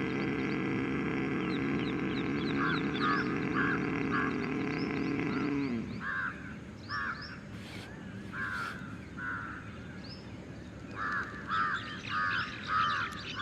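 A long ujjayi inhalation: a steady breath drawn in through a narrowed throat so that it sounds from the throat, ending about six seconds in with a falling tail. Crows caw repeatedly behind it, most often near the end.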